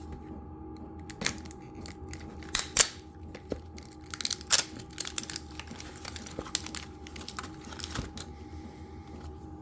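Packaging opened and small parts handled, likely the drill bit sharpener's collets: a run of irregular clicks, taps and brief rustles of wrapping, loudest about three and four and a half seconds in.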